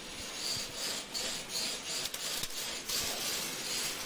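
Steady crackling hiss of wire-feed arc welding on the steel hooklift subframe, with a few faint knocks about two to three seconds in.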